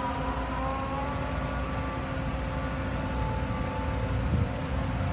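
Pakistan Railways AGE-30 diesel locomotive approaching from a distance: a steady low rumble with a constant low hum. A few faint high tones come and go over it.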